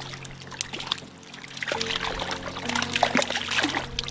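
A small hooked trout splashing and thrashing at the water's surface, the splashes coming thick and fast in the second half. Soft steady background music runs underneath.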